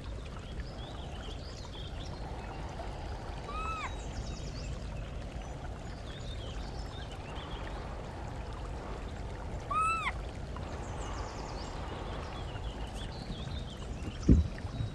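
Outdoor ambience: a steady low rumble with faint chirps over it, two identical short calls that rise and fall in pitch about six seconds apart, and a sharp thump near the end.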